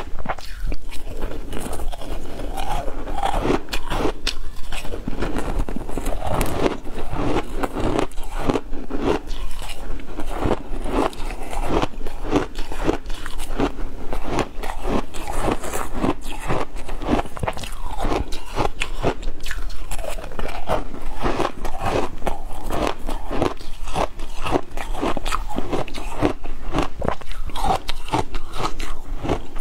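Crushed ice dusted with matcha powder being crunched and chewed, close to a clip-on microphone: a dense, continuous run of crisp crunches.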